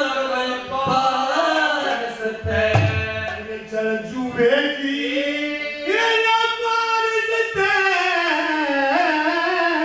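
A man singing a Haryanvi ragni in long, sliding held notes, with harmonium accompaniment and a few hand-drum strokes.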